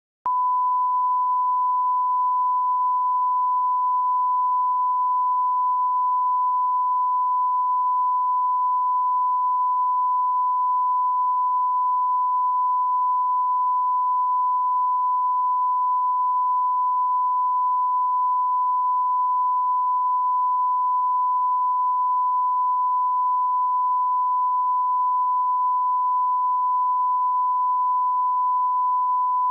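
Steady 1 kHz line-up test tone, a single pure unbroken note accompanying SMPTE colour bars. It starts a fraction of a second in and holds at a constant level.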